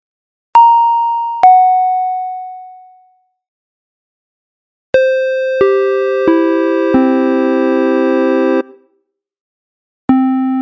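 Electronic 'pin-pon' chime sound effects: a two-tone doorbell chime, high note then lower note, each ringing out. After a pause comes a four-note descending chime whose notes ring on together and cut off together, and another chime begins near the end.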